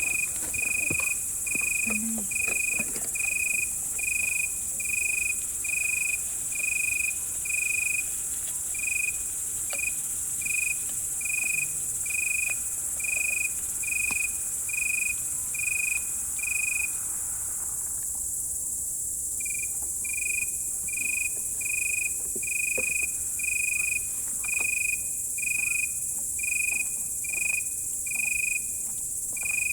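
A cricket chirping in an even rhythm, short chirps at one pitch about every three-quarters of a second, pausing for about two seconds past the middle. A steady high insect hiss and a few faint clicks sit underneath.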